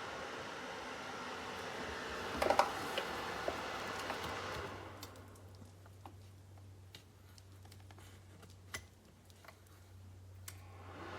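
Small ceramic space heater's fan blowing with a steady hiss, with a couple of sharp clicks about two and a half seconds in. The blowing dies away about five seconds in, leaving scattered light clicks and a low hum, and starts up again near the end.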